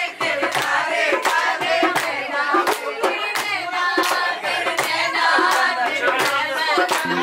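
Several voices singing together over steady rhythmic hand-clapping, about three claps a second.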